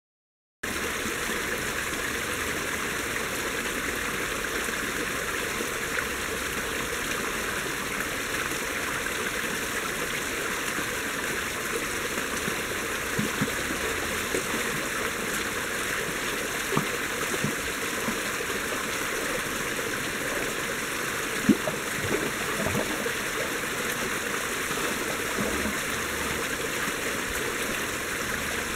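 A small forest stream with a little cascade, water running and splashing steadily over rocks into a shallow pool. A few brief plinks stand out here and there, the sharpest a little past the middle.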